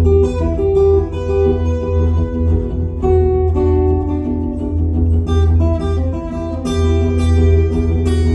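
Solo acoustic guitar played live through a PA: a steady low bass note rings under a continuous run of plucked melody notes.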